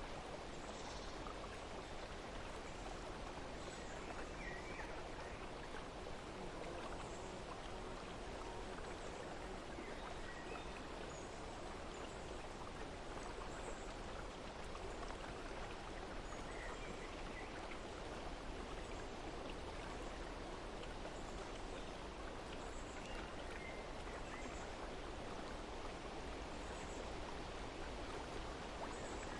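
Steady running water, with faint short bird chirps scattered over it.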